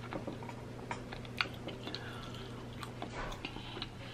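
Soft chewing mouth sounds of someone eating macaroni and cheese, with scattered small clicks, over a faint steady low hum.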